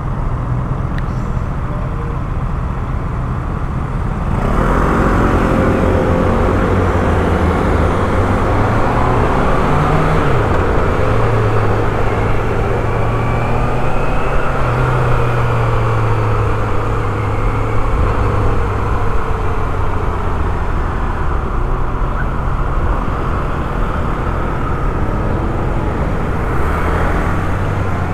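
Motorcycle engine idling while stopped at a red light, then from about four seconds in the bike pulls away and rides on through traffic, the engine note rising and falling under steady road and wind noise.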